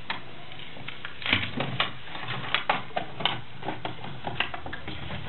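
Irregular sharp plastic clicks and snaps as a Trailblazer's lower dash knee bolster panel is pried loose by hand, its retaining clips popping free.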